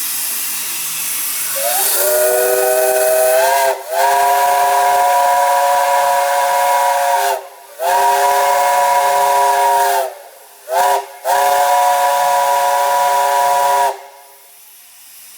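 Central of Georgia five-chime steam whistle blown in a series of blasts over hissing steam: the chord slides up in pitch as it opens about two seconds in, then sounds four more blasts, one of them a very short toot, before cutting off near the end.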